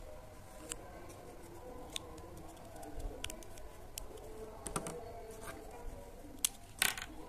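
Scattered light plastic clicks and clacks of markers and their caps being handled and set down, about a dozen over several seconds, the sharpest a quick pair near the end.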